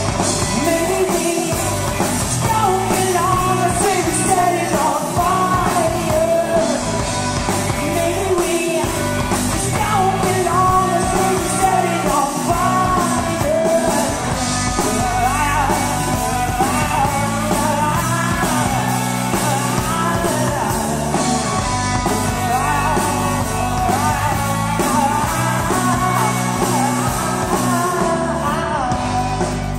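A live rock band playing: a sung lead vocal over electric guitars, keyboard and a drum kit, loud and steady throughout.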